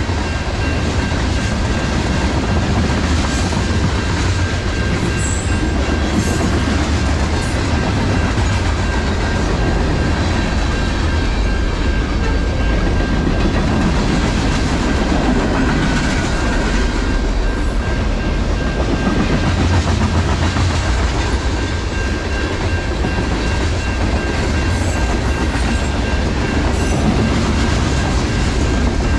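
Freight cars of a long mixed freight train rolling past: a steady rumble with the clickety-clack of steel wheels over the rail joints, and a thin steady high tone running under it.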